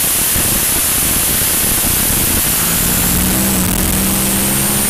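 Cockpit of a twin-turbo Pro Mod Mustang drag car rolling at low speed: the engine runs at a low, steady pitch under a loud, even rush of wind and road noise.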